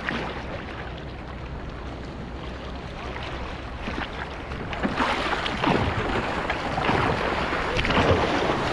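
Seawater splashing and sloshing right at a helmet-mounted GoPro on a surfer in the ocean, a steady wash that gets louder and more splashy about five seconds in.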